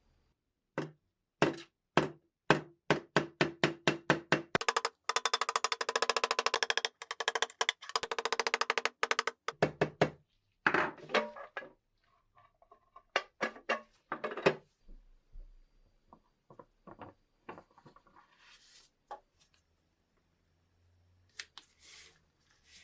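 Hand-work on the metal parts of a large lighter during restoration: a run of sharp knocks and clicks that speeds up into a fast, even rattle about five seconds in, followed by scattered taps and clicks with short pauses between them.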